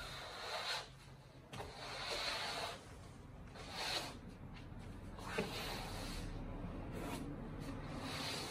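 Long-handled flat-headed floor broom swept in repeated strokes across a wooden floor, a soft scraping rustle with each stroke.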